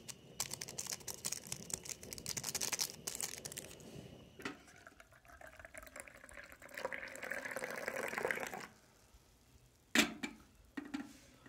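Hot water poured into a mug to make black coffee, a filling sound lasting a few seconds in the middle. It comes after a few seconds of crackly rustling, and a single sharp knock follows near the end.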